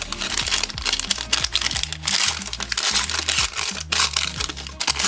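Crinkle-paper shred and packaging rustling and crackling as hands dig through a box and open a small package, over background music with a steady bass line.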